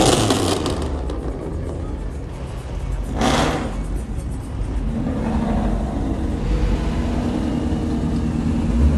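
Car engines revving and accelerating. There are two loud bursts, one at the start and one about three seconds in, followed by a steady engine drone in the second half.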